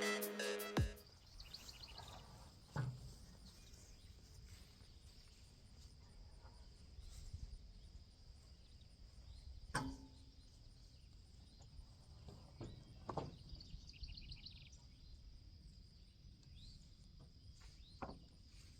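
Music cuts off about a second in, then quiet outdoor ambience: a steady high insect drone with a few short chirp trains, broken by four faint knocks.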